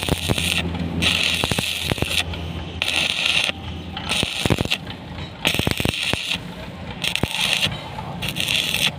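Electric arc welding in short bursts: a crackling hiss that starts and stops about once a second, as in tack or stitch welds, over a steady low hum from the welding set, with a few sharp clicks between bursts.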